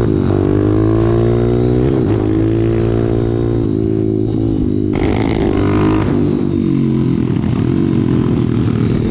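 Single-cylinder four-stroke pit bike engine pulling up through the gears, its pitch climbing and dropping back at each upshift about three times, then running at a fairly steady cruise.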